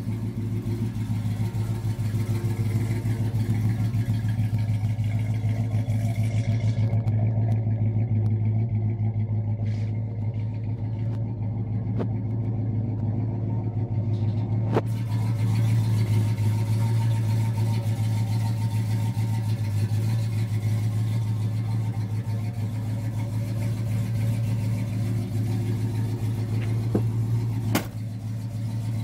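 1969 Dodge Super Bee's 383 big-block V8 idling steadily through its dual exhaust.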